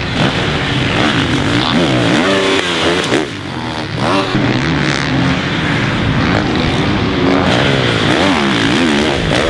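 Several supercross dirt bike engines revving hard and dropping back over and over, their pitch rising and falling as the riders work the throttle around the track, with more than one bike heard at once.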